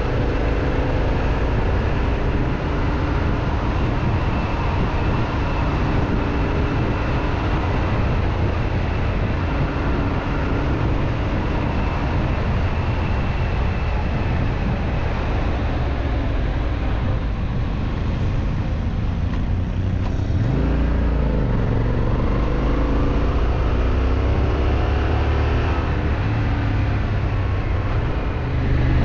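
Yamaha Ténéré 700's parallel-twin engine running as the motorcycle rides along, under a steady rush of noise. About two-thirds of the way in, the engine note drops briefly and then climbs as the bike accelerates.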